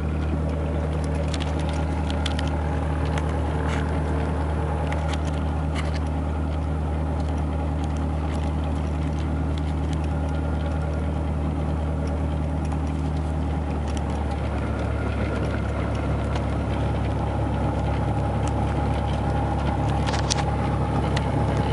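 Steady engine drone and road or cabin hum heard from inside a moving vehicle. The low hum changes pitch slightly about two-thirds of the way through.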